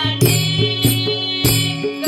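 Women singing a Marathi devotional bhajan to Vitthal (an abhang) with a harmonium. Small hand cymbals (taal) clash on a steady beat, a few strikes in two seconds.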